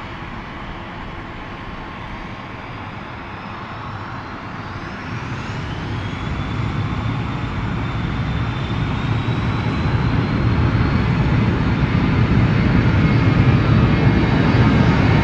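Airliner's engines growing steadily louder as the aircraft approaches, with a high engine whine that rises in pitch about five seconds in and then holds.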